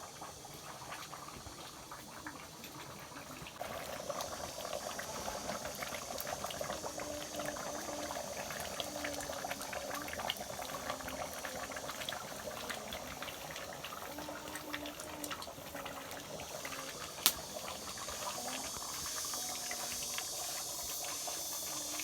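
A cooking pot boiling, bubbling steadily with small pops and crackles; the boil gets fuller and a little louder about four seconds in.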